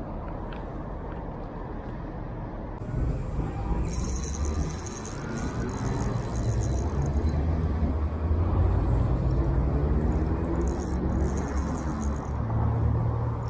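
An engine's low, steady rumble that grows louder about three seconds in and is strongest through the middle.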